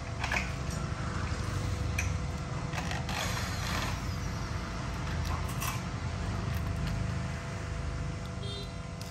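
Corded electric drill running as it drills into the corner of an aluminium window frame, with a few sharp metallic clicks; the drilling stops near the end.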